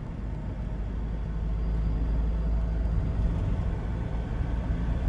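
A motor vehicle running with a steady low rumble that grows slightly louder about a second in.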